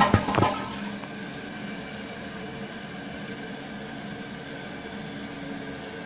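2011 Kohler Wellworth toilet tank flushing and refilling: a few clunks at the start, then a steady hiss of water running in through the fill valve.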